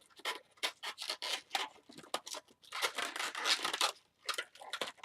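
Inflated latex twisting balloons rubbing against each other and against the fingers as they are twisted together: a quick, irregular run of short scratchy rubs.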